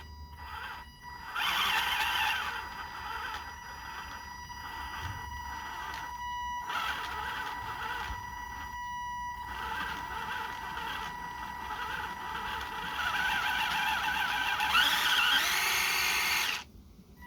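Toy RC car's electric motor and gear drive whirring in bursts as the throttle is worked, over a steady high whine. The whirring rises in pitch near the end, then cuts off suddenly. The owner says the drive seems to slip, as if the drive gear is slipping.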